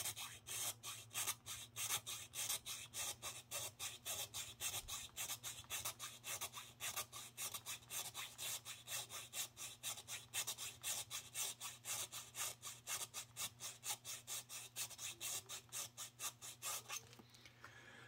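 Needle file rasping back and forth inside the bottom screw hole of a G10 pistol grip panel, in quick even strokes of about four a second that stop shortly before the end. The file is taking material off the top of the hole so that the grip can sit flush on the frame.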